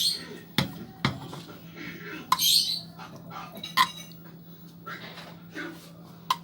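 Metal spoon clinking and scraping in a cooking pan as a spoonful of ghee melts over the gas: a handful of sharp clinks spread out, with a short scrape about two and a half seconds in, over a steady low hum.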